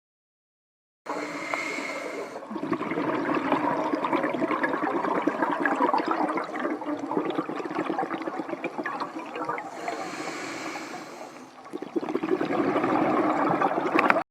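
Scuba diver breathing through a regulator underwater: a short hiss of inhalation, then a long bubbling rush of exhaled air, twice. It starts suddenly about a second in and cuts off at the end.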